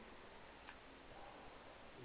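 Near silence with one short, sharp click about two-thirds of a second in, from the detached iPhone 3G glass digitizer and its plastic earpiece frame being handled.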